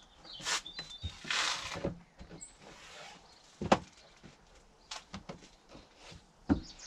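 Car sound insulation being pushed and fitted into the boot: rustling and scraping, with scattered light knocks and one sharp knock about halfway through.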